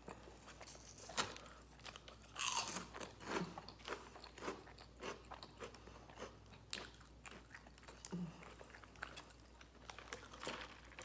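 Close-miked chewing and crunching of food, irregular crackly bites and chews, with a louder crunch about two and a half seconds in.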